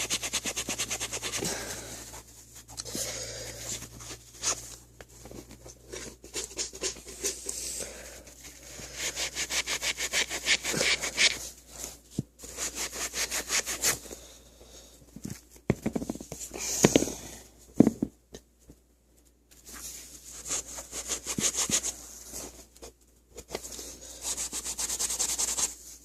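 A damp Magic Eraser sponge scrubbing a scuff off a sneaker: fast back-and-forth rubbing strokes in several spells, with short pauses between them. A few sharp knocks sound about two-thirds of the way through.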